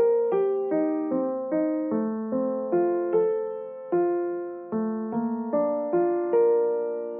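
Background music: a solo piano playing a gentle melody of single notes, each struck and left to ring out, the last one fading away near the end.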